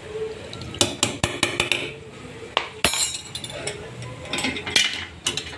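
A steel ladle and other steel utensils knocking and clinking against a stainless steel pot of thick cooked toor dal: a series of sharp, irregular metallic clinks.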